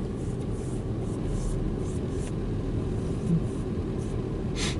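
Car cabin noise while driving: a steady low rumble of the tyres and engine.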